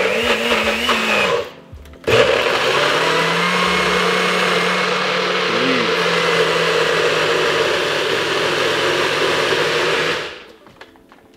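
Single-serve personal blender running with its cup pressed down on the motor base, blending a thick protein smoothie in a cup filled past the max fill line. A short run stops briefly about a second and a half in, then the blender runs again steadily for about eight seconds and winds down near the end.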